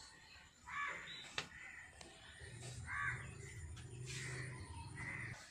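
Crows cawing, four or so faint separate caws about a second or more apart, over a faint low hum.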